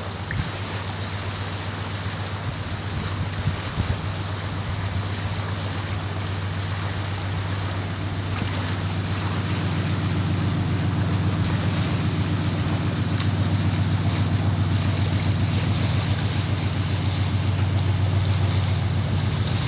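1995 Ford F-150 pickup's engine running, a low steady drone that grows louder about halfway through as the truck drives closer, over a steady rushing hiss.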